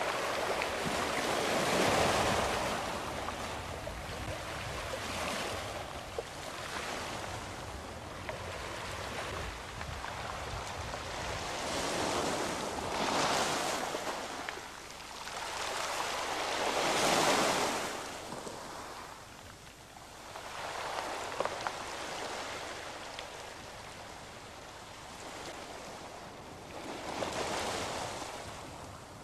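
Sea waves breaking and washing, a rushing noise that swells and fades every few seconds.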